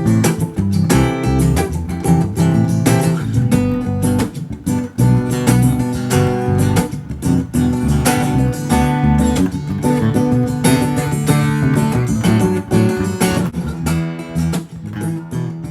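Background music: strummed acoustic guitar with a bass line, fading out near the end.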